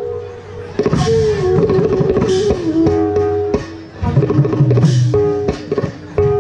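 Live Bhaona accompaniment music: a held melody that sounds like harmonium over khol barrel-drum strokes. The music dips briefly about four seconds in.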